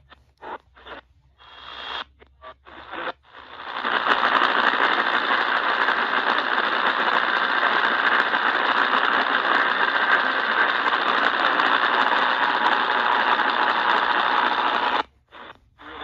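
Eton portable radio being tuned through the AM band: short choppy snippets of reception broken by silent gaps between tuning steps, then a long stretch of steady static with faint whistling tones in it, which cuts off suddenly near the end as the tuning moves on.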